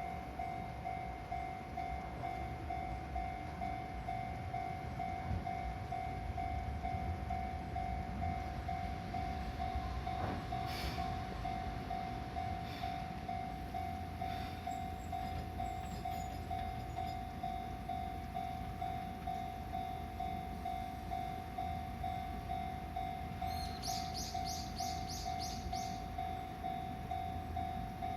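Japanese level crossing alarm ringing in steady, evenly repeating pulses, over the low rumble of a Keihan 700-series two-car train on the Ishiyama Sakamoto Line. A quick run of high chirps sounds briefly about three-quarters of the way through.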